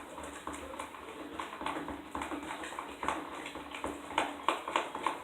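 A spoon stirring slime made of glue, detergent and shaving cream in a bowl, with irregular clicks and knocks of the spoon against the bowl.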